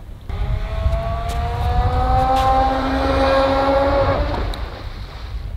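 Electric jet drive of a 12S RC jet boat whining as it spools up, the pitch rising slowly, then cutting out suddenly about four seconds in as the boat loses power. Wind rumbles on the microphone throughout.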